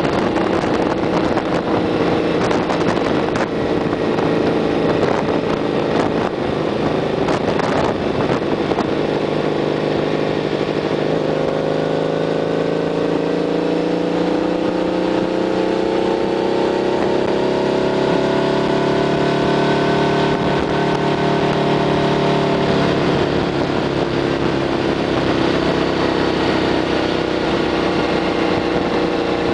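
Honda VF1000R's V-four engine running under way, with wind buffeting the microphone during the first several seconds. From about eleven seconds in, the revs climb slowly for some ten seconds, then drop back about twenty-three seconds in.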